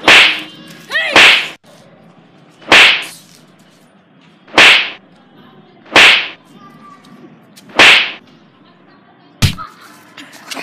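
Punch and kick hit sound effects: seven sharp, loud smacks, roughly one every one to two seconds, the last one weaker.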